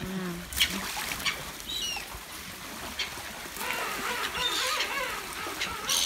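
Birds calling over a pond at feeding time: harsh, wavering calls that come thickest in a busy stretch past the middle, with a few sharp splashes of thrown fish hitting the water.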